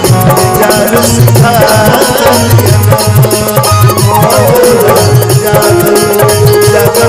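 Instrumental break of live Bhojpuri folk music: a harmonium plays a held, winding melody over a quick, steady hand-drum rhythm, with a bright metallic ticking percussion keeping time.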